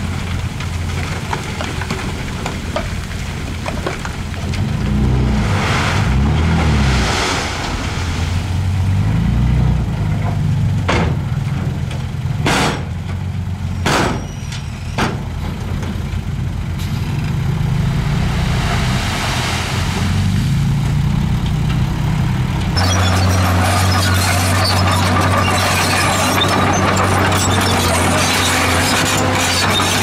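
Diesel engine of a tipper dump truck running and revving while its raised bed unloads rock and dirt, with a rushing sound of the load sliding off and a few short sharp sounds in the middle. About three-quarters of the way in it changes to the steady diesel engine of a Komatsu D51PX crawler bulldozer, with squeals from its moving tracks near the end.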